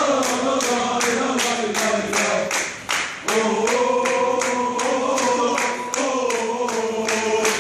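Group of Galatasaray supporters singing a football chant together in unison, with steady clapping about two to three claps a second. The singing breaks off briefly about three seconds in, then resumes.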